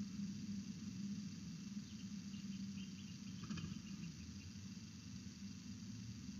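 Steady low hum of outdoor background noise, with faint high chirping a couple of seconds in and a faint click.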